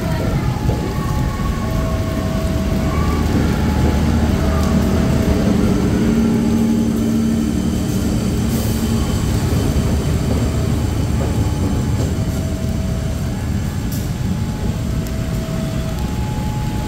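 CC201 diesel-electric locomotive moving slowly while shunting a rake of coaches, its GE V8 diesel engine humming steadily and loudest about four to nine seconds in, over the hiss of heavy rain. A two-note electronic warning tone alternates faintly in the background.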